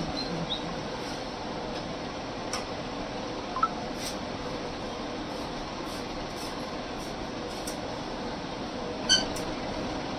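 Steady background hum and hiss with a few light clicks, and a short high-pitched squeak about nine seconds in, the loudest moment.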